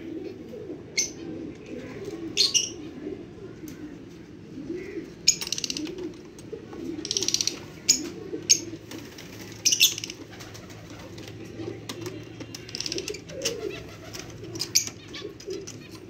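Pigeons cooing continuously, with short, sharp high-pitched chirps from lovebirds breaking in every second or two, one quick run of them about six to seven seconds in. A few light clicks sound over it as the water dish is handled.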